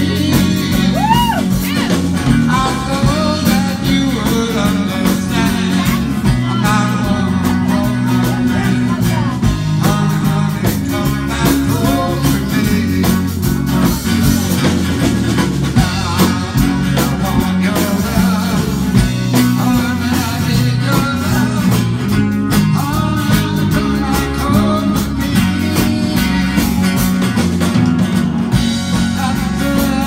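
Live band playing a song: electric guitar and drum kit with a singing voice over them.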